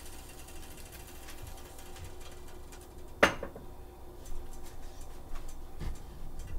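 Small kitchen handling noises on a countertop: light scattered clicks and one sharp clack about three seconds in, over a low steady hum.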